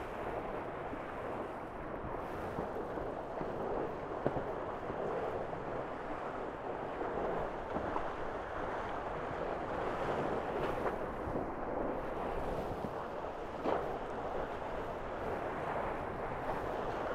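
Steady rush of water and wind aboard a Tornado racing catamaran under sail. A short sharp knock comes about four seconds in and another near fourteen seconds.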